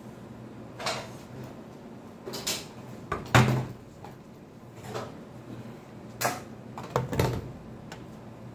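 Household objects being handled and set down on a tabletop: a string of separate knocks and clunks, the loudest about three and a half seconds in, over a faint steady low hum.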